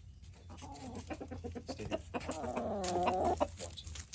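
Chickens clucking in quick, short notes, with one longer, wavering call about two to three seconds in.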